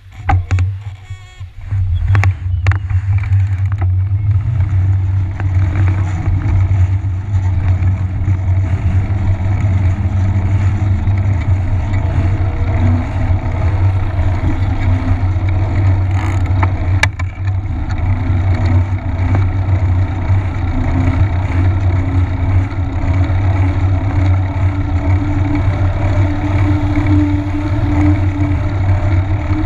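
Wind rushing over the microphone of a handlebar-mounted action camera and a knobby fat-bike tyre humming on asphalt, starting about two seconds in as the bike rides off from a standstill. It is a loud, steady rumble with a faint hum that rises and falls a little with speed.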